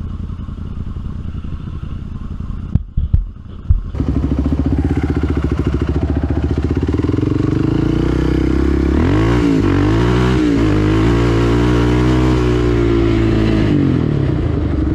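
ATV engine running as the quad rides along, with a few sharp knocks about three seconds in. The engine gets louder about four seconds in, its revs drop and climb back twice a little before the middle, then hold steady.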